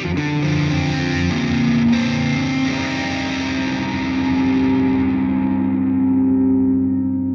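Soundtrack music: distorted electric guitar with effects. From about three seconds in, one chord is held while its brightness gradually fades.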